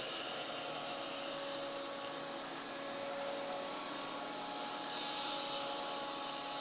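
Steady fan-like hum and hiss with a few faint steady tones: background machinery or ventilation noise.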